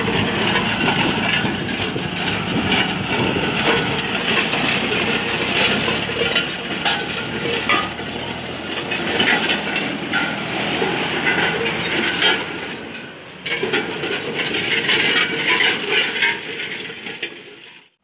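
Tractor pulling a disc harrow through the soil: a dense metallic clanking and rattling of the harrow discs, with the tractor engine's hum fading over the first several seconds.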